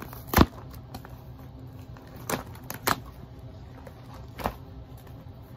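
Paper label and plastic packaging of a fireworks assortment bag being pulled off and handled: crinkling and tearing with a few sharp snaps, the loudest about half a second in.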